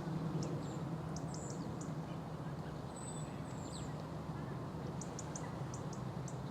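Small birds calling with short, very high, thin notes in scattered clusters, over a steady low background rumble.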